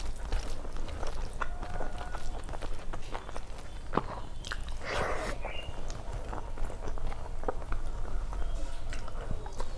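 Close-miked eating sounds: chewing with many small wet mouth clicks and smacks, and a brief louder noisy sound about five seconds in.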